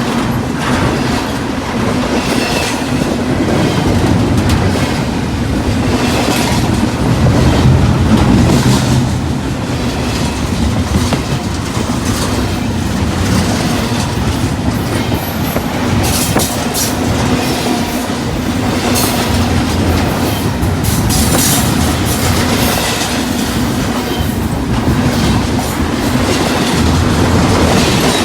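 Cars of a CSX freight train rolling past close by: a steady rumble of steel wheels on rail, with repeated clacks as the wheels cross rail joints.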